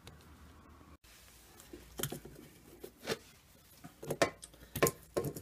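Scattered light clicks, taps and knocks of a Mikuni carburetor being worked loose by hand from its rubber intake boot and clamp, with several sharper clicks in the last couple of seconds.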